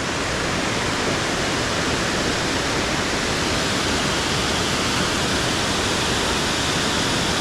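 A waterfall rushing, a steady loud roar of falling water.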